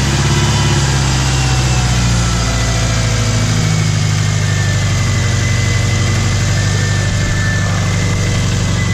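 Subaru EJ25 flat-four engine running steadily at idle just after a restart, a freshly swapped-in junkyard engine with oil just topped up after a low-oil-pressure warning.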